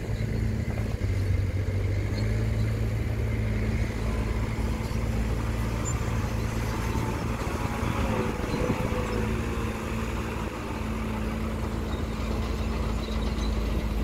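Diesel engine of a loaded 5-ton dump truck running steadily as it crawls through mud, a constant low drone.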